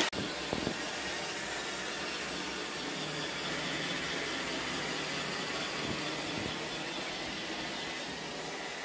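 iRobot Roomba 690 robot vacuum cleaning carpet: a steady whir of its vacuum motor and brushes, with a few faint clicks, easing off slightly near the end.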